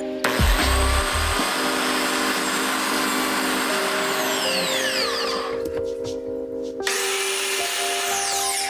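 Biscuit jointer motor running as its blade plunges into the mitered corner to cut a biscuit slot, then winding down with a falling whine about five and a half seconds in. It starts again a second later for another cut and is winding down again near the end.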